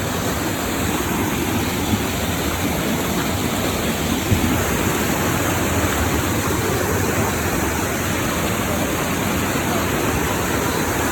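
Waterfall heard close by: a loud, steady rush of falling water.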